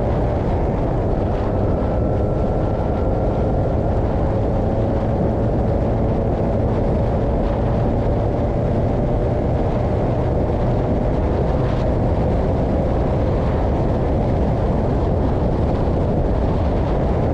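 Formula 2000 single-seater race car running, heard from an onboard camera: a steady loud low roar of engine, wind and vibration, with a faint engine note that rises slowly.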